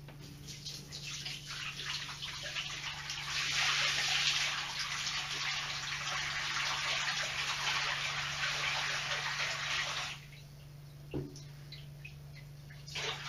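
Water pouring from a white plastic minnow bucket into a bathtub, splashing steadily and stopping abruptly after about ten seconds: about three quarters of the bucket's stale water being dumped out to be changed. A couple of short knocks follow near the end.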